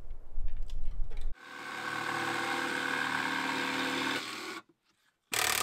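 A low wind rumble, then an electric power tool runs steadily for about three seconds and stops. A short, loud hissing burst of tool work begins near the end.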